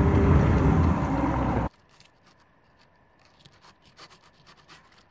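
A loud, steady low rumble cuts off suddenly under two seconds in. Then come faint scraping and small clicks as a knife works a whole fish on a plastic cutting board.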